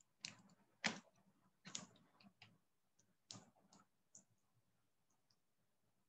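Faint clicks and small knocks from a man taking a drink: about seven short sounds over the first four seconds.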